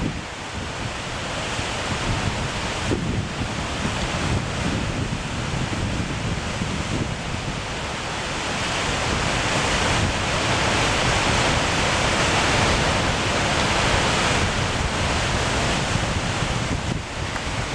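Steady rush of whitewater, with wind buffeting the microphone, growing louder about halfway through.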